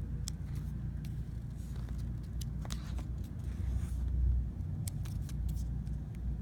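Plastic card-binder pages and sleeves handled and turned by hand: scattered light clicks and crinkles over a steady low rumble.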